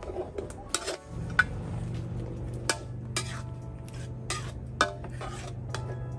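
Metal ladle scraping and clinking against a metal wok in irregular strokes as curry paste is stir-fried in coconut cream. A steady low hum starts about a second in.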